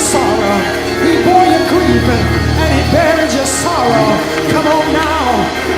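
Slow worship music with held bass notes and sustained chords, and several voices singing and calling over it.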